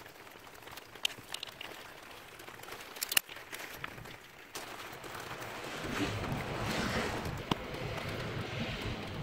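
A few sharp clicks and taps of hand tools against metal engine parts, the loudest about three seconds in, then a steady rustling, scrubbing noise from about six seconds in.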